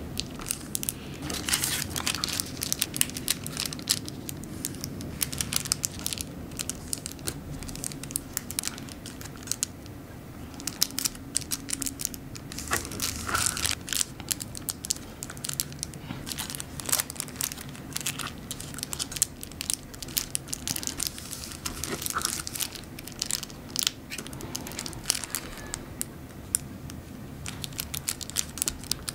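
A sheet of origami paper being folded and creased by hand: crinkling with many short, sharp crackles as the folds are pressed. A faint low hum lies under it.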